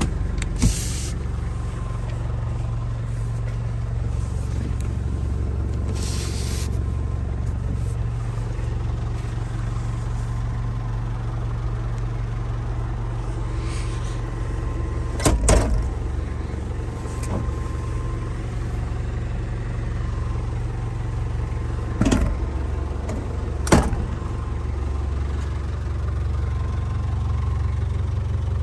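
Nissan TD27 four-cylinder diesel idling steadily, heard from inside the van's cabin as a low, even hum. Over it come two brief rustles and a few sharp knocks, about halfway through and twice near the end.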